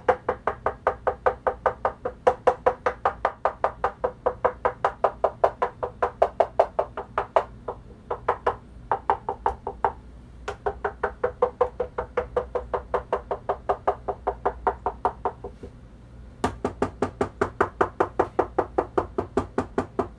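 Tap test on two Sony PS-X555ES linear-tracking turntables: a hand knocks in quick runs, about four taps a second, on the plastic front panels and tone arm back covers to compare how each resonates, one stock and one with its plastic parts damped and a supplemental plinth fitted. The last run, from about three-quarters of the way through, sounds brighter and sharper.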